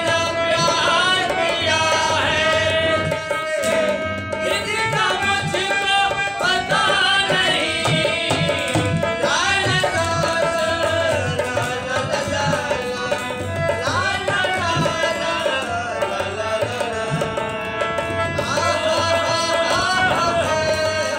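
Background music with a wavering melody over a steady drum beat.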